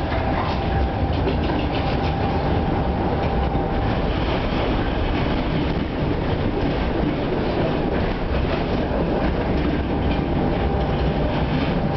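Tatra T5C5 tram running along the line, heard from inside the passenger car: a steady rumble of wheels on rails with light rattles and clicks. A thin steady whine fades out about four seconds in.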